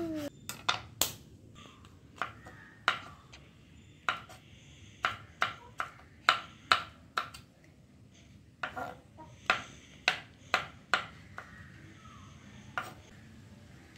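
Large kitchen knife chopping on a wooden cutting board, cutting through mushrooms: a run of sharp, irregular knocks, with short pauses between bursts of strokes.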